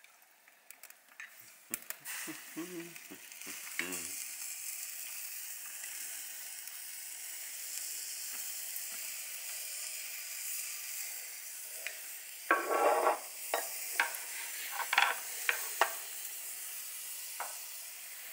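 Steady sizzling hiss from a beer-can chicken and its foil drip tray over glowing charcoal in a kamado grill while it is basted with a brush. There are a few clicks early on, and louder spits and crackles about two-thirds of the way in.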